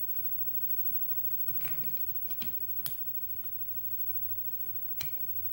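A few sharp small clicks and taps of tools working at a lock cylinder's retaining clip to remove it, one loudest click a little under halfway through, over a steady low hum.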